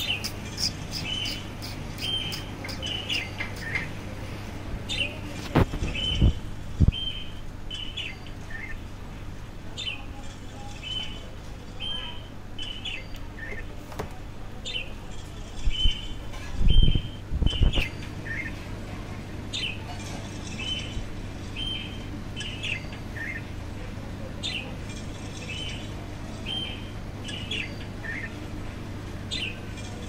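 Budgerigars chirping in short, quickly repeated calls over a steady low hum. A few loud low thumps come about six seconds in and again around seventeen seconds.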